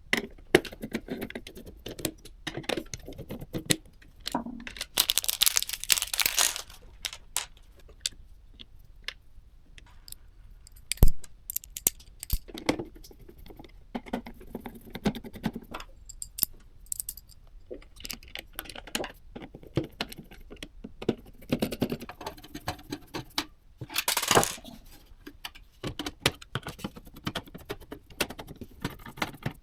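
PC parts being handled and fitted close up: scattered small clicks, light metallic rattles and taps. Two louder stretches of packaging rustle come about five seconds in and again past the middle, and one sharp knock falls about a third of the way through.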